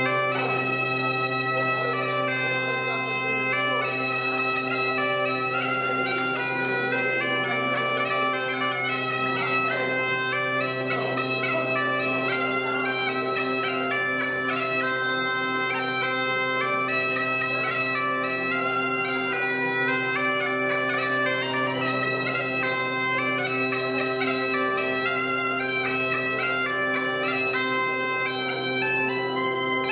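Bagpipe playing a quick-stepping melody over a steady drone.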